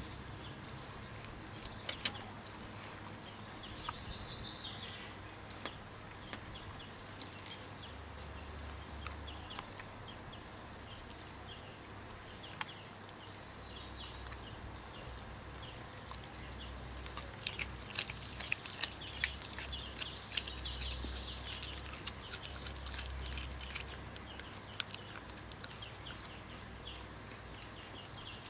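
Australian kelpie gnawing and licking raw lamb spareribs on a metal crate tray: scattered small wet clicks and crunches, coming thickest past the middle.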